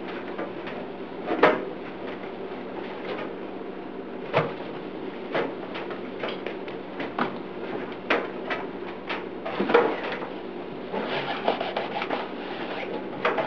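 A rag wiping the inside of a microwave oven, with scattered knocks and clicks as the hand and rag bump the cavity walls, and a stretch of steadier rubbing near the end.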